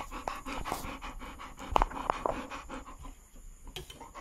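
Dogs panting close to the microphone: a Rottweiler and a Labrador begging at the table. A few sharp clicks or smacks come about two seconds in and are the loudest sounds.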